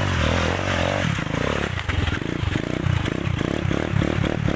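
Motorcycle engine running at low revs. From about two seconds in its note pulses fast and evenly.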